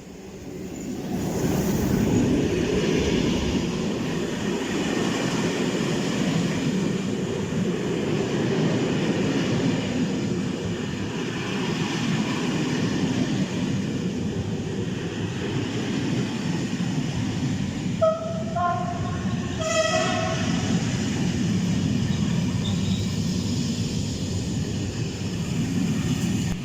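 Diesel locomotives, BB 67200s running in multiple, passing close by: a loud steady rumble that builds over the first two seconds. About eighteen seconds in the horn gives a few short notes at two pitches, the last one longer.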